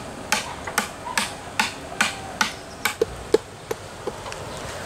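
A steady run of sharp knocks, about two and a half a second, like a tool or blade striking something hard. About three seconds in they give way to a few duller, lower knocks that thin out.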